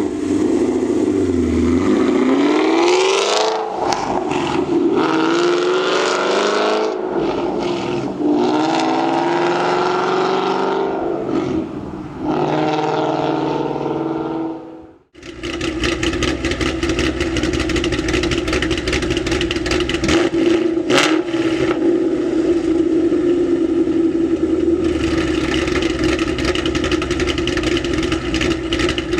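Ford Mustang GT's 5.0 V8 exhaust through long-tube headers and a Corsa Xtreme catback, revving hard with the pitch climbing and dropping back several times. About halfway in the sound cuts, then the engine holds a steady note.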